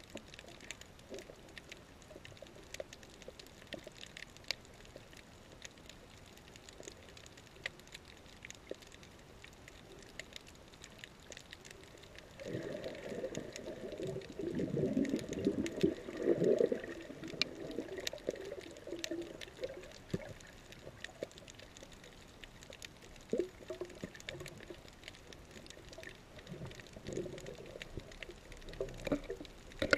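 Underwater reef ambience heard through a camera's waterproof housing: many scattered sharp clicks, with a louder, muffled churning of moving water from about twelve to twenty seconds in.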